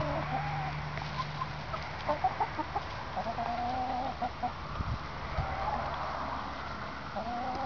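A flock of hens clucking, with scattered short clucks and a few longer drawn-out calls. A couple of low thumps sound about five seconds in.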